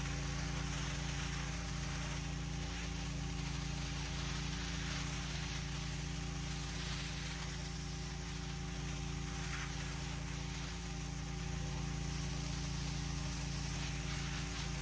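Petrol pressure washer's engine running at a steady, constant speed, with the hiss of the high-pressure water spray over it.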